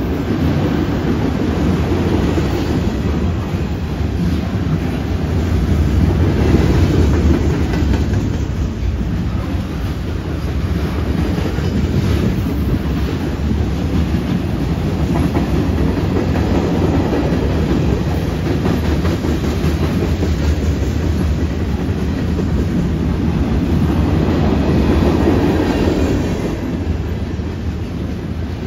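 CN freight train's cars rolling past close by: a steady rumble of steel wheels on rail with clickety-clack over the rail joints, swelling louder every few seconds as trucks go by.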